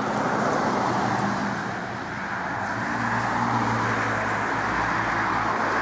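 Road traffic: cars passing, a steady rush of tyre and engine noise.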